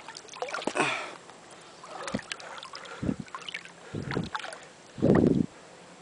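Water sloshing and splashing around a boat, with scattered small knocks and a run of dull surges about a second apart, the loudest near the end.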